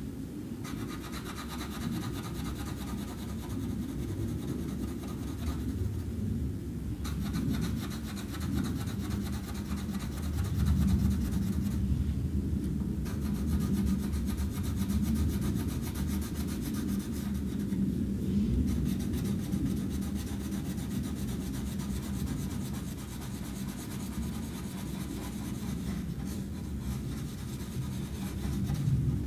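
Colored pencil shading back and forth on paper over a wooden tabletop: a steady scratchy rubbing that stops briefly three times as the pencil lifts.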